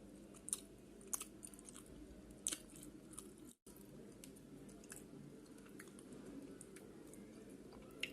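Close-miked chewing of chicken pizza, with a few sharp crunchy clicks in the first three seconds and again near the end, over a steady low hum. The sound cuts out for a split second about three and a half seconds in.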